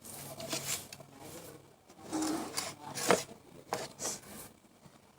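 A foam squishy toy being handled and squeezed, making a series of short rubbing and scraping noises, the sharpest about three seconds in.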